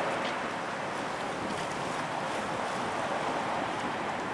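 Steady wind and choppy open water lapping, an even rushing noise with no distinct events.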